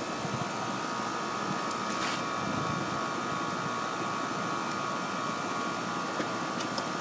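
Steady machinery hum with a constant high whine running through it, and a few faint clicks as wire terminals are pushed onto an air-conditioning contactor.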